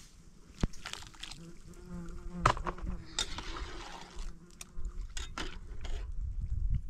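An insect buzzing steadily for a few seconds, with scattered light clicks and knocks around it.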